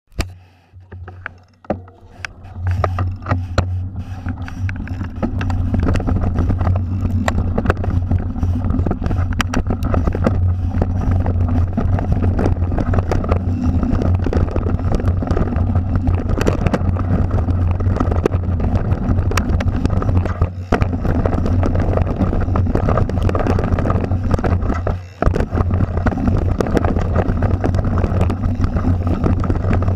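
Mountain bike rolling down a dirt singletrack, heard through an action camera's microphone: a steady low wind rumble with many small knocks and rattles from the bumps. It builds over the first few seconds as the bike picks up speed and dips briefly about 25 seconds in.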